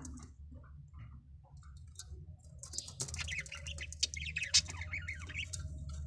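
Budgerigars in a nest box: soft scattered scratching at first, then about three seconds in a burst of rapid, raspy chirping that lasts a couple of seconds. A low steady hum runs underneath.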